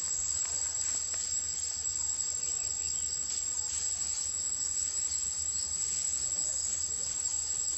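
Chorus of forest insects: a steady, high-pitched drone that goes on without a break.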